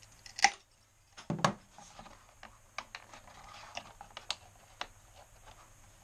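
Two sharp snaps about a second apart, a Leatherman Surge's wire cutters clipping through bamboo skewer, followed by lighter scattered clicks and taps.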